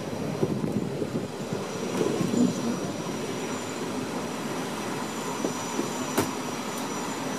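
Matterhorn Gotthard Bahn metre-gauge passenger train rolling slowly into a station, heard from a carriage window: wheels running on the rails with a faint high squeal and a sharp click about six seconds in.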